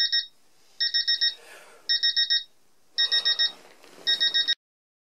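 Digital alarm clock beeping: groups of four quick high-pitched beeps, about one group a second, with rustling of bedding between them. The beeping cuts off suddenly near the end.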